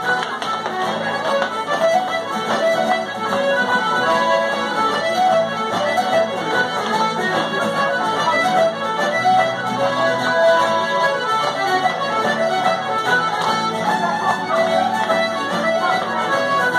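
Irish traditional set-dance music playing continuously at a steady dance tempo.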